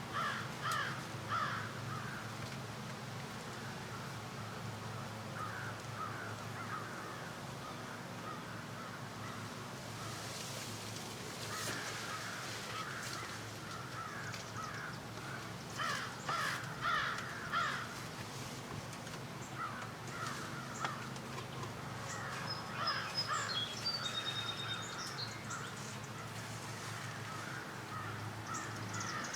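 Crows cawing in several bouts of quick repeated caws, with a few high thin bird notes near the end.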